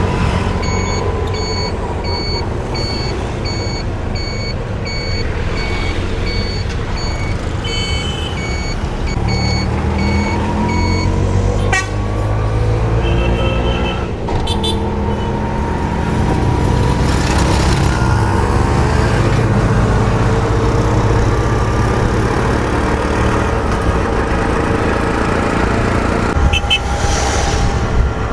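Street traffic: vehicle engines running and passing, with an electronic beeper repeating at an even pace for the first ten seconds or so and a few short horn toots later on.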